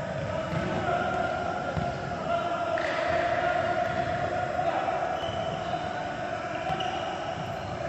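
Footballs thudding and bouncing on a hardwood sports-hall floor, with reverberant echoes. A steady droning tone runs underneath.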